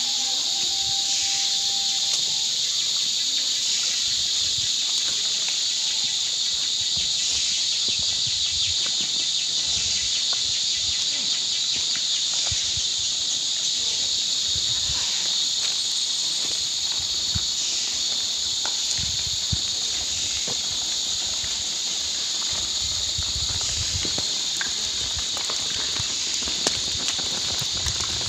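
Steady high-pitched drone of a forest insect chorus, with scattered faint knocks.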